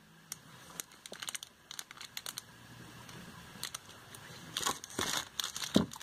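Plastic packaging crinkling and rustling in short, scattered spells as it is handled. The rustling is sparse at first and grows busier and louder near the end.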